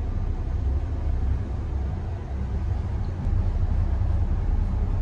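Passenger lift car travelling between floors, giving a steady low rumble.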